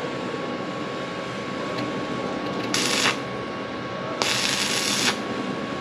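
Two short bursts of electric arc welding hiss and crackle, tack welds: the first under half a second, the second about a second long, over a steady background hum.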